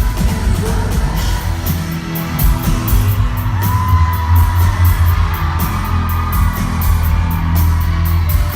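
Live pop-rock band playing loud through a concert PA, heard from the crowd: heavy bass, a steady drum beat with regular cymbal hits and a singer's voice on top.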